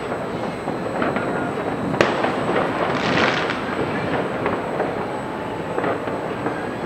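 Distant New Year fireworks across the city, a continuous mass of popping and rumbling, with one sharp bang about two seconds in and a crackling burst about a second later.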